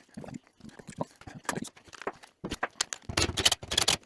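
Irregular clicks, knocks and clatter of hand tools and loose metal parts being handled while a motorcycle is taken apart. The clatter grows denser and louder over the last second and a half.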